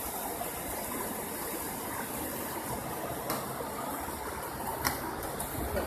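Steady rushing of floodwater, with two faint clicks a few seconds in.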